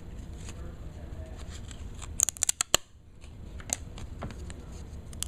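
Old trading cards that have stuck together being peeled apart by hand: faint rustling handling, then a quick run of sharp crackling snaps a little over two seconds in, and one more snap near the end.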